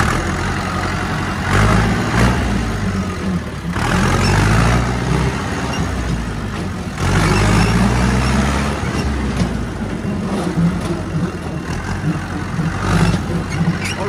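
Massey Ferguson 290 tractor's four-cylinder diesel engine running as the tractor is driven. Its note rises and falls several times with the revs.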